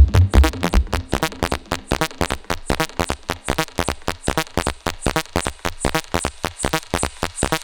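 Make Noise XPO Stereo Prismatic Oscillator in a Eurorack synth patch, playing a fast sequence of short, plucky notes, about seven a second. The patch runs a low-pass filtered wavefolded output alongside a high-pass filtered pulse-width-modulated output. Deep bass notes sound in the first second or so, then drop away, leaving the higher notes.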